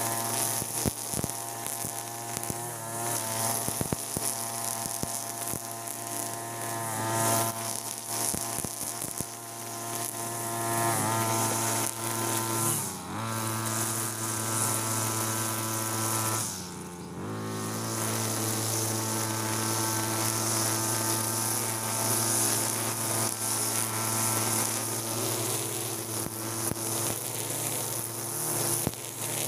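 TB43 two-stroke brush cutter running at high throttle, its nylon trimmer line whirring through grass. The engine note eases off briefly twice, a little before and after the middle, then picks up again.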